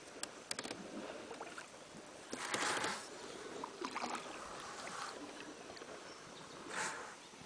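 Water splashing at a coracle in a river: two short splashes, likely paddle strokes, the louder about two and a half seconds in and another near the end. A few light knocks and clicks come just after the start.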